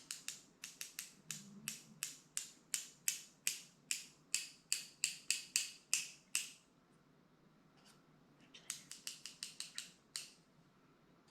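Scissors snipping in a quick run of sharp cuts, about three a second for six seconds. After a pause, a second, shorter run comes near the end.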